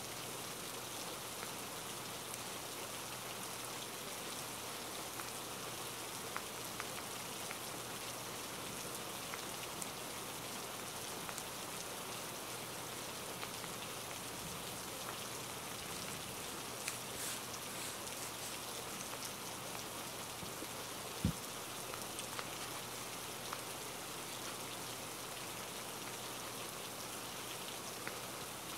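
Steady rain: an even hiss with faint scattered drop ticks, and one short low thump about two-thirds of the way through.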